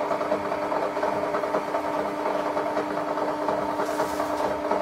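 Sharp XE-A203 cash register's printer running steadily, feeding paper as it prints a long Z1 electronic journal report, the report that clears the EJ near full error. A brief soft hiss comes near the end.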